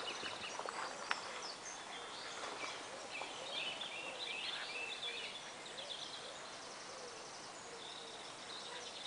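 Wild birds chirping and trilling over a faint outdoor background hiss, with a single sharp click about a second in.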